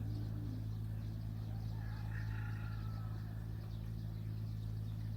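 Steady low machine-like hum, unchanging in pitch, with a faint short falling bird call about two seconds in.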